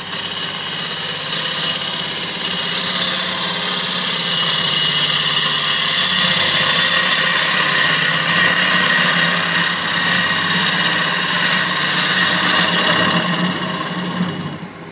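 A gouge facing off the spinning Malaysian acacia blank on a Laguna wood lathe. The cut makes a steady shearing hiss over the lathe's hum. It builds in the first couple of seconds and eases off near the end as the cut finishes.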